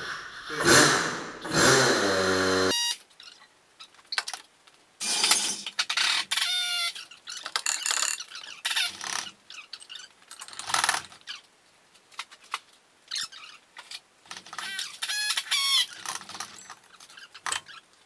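Overhead hoist running for about two seconds as the cylinder rod is lifted, stopping suddenly, then scattered short clanks and squeaks of metal tools and parts being handled.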